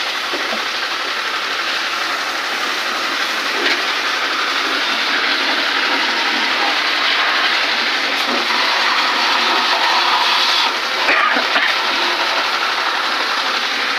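A water jet from a hose spraying against the coils of a window-type air conditioner: a steady, loud hiss and splash, briefly broken just before eleven seconds in.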